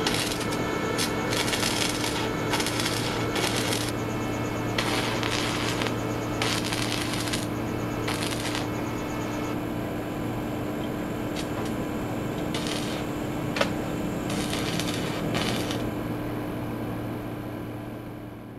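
Stick-welding arc crackling and sizzling in irregular bursts as the electrode is struck and run, stopping and restarting several times, over a steady low hum. It fades away near the end.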